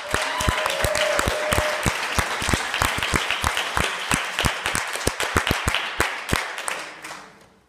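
Audience applauding, dense irregular clapping that thins out and fades near the end. A voice calls out briefly about half a second in.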